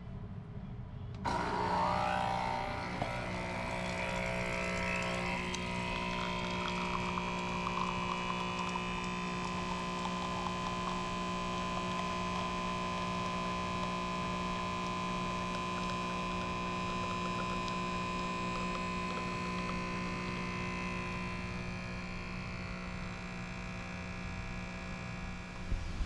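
A steady machine hum made of several fixed tones, starting about a second in, with a higher steady whine that fades out near the end.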